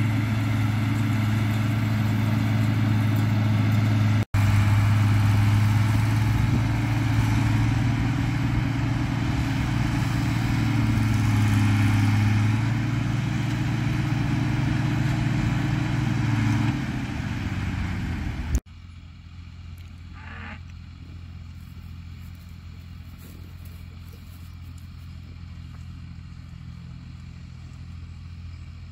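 Farm tractor running steadily close by while pulling a round baler across a hay field. About two-thirds of the way through, the sound cuts suddenly to a much quieter, more distant tractor engine running steadily.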